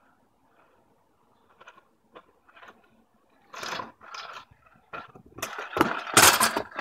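Kick scooter rolling over rough asphalt, its wheels and deck rattling and clattering, faint at first and growing loud as it passes close by about five and a half seconds in.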